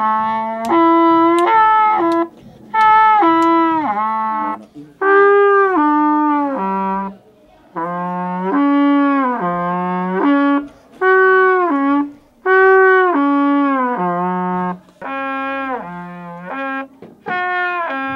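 Trumpet playing a harmonics exercise: lip slurs moving up and down between the notes of the harmonic series, in short slurred phrases with brief breaks for breath between them.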